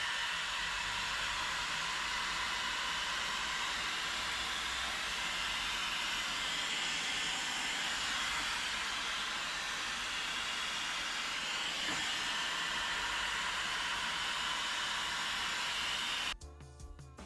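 Hair dryer blowing steadily, a continuous airy hiss, cutting off abruptly about a second before the end.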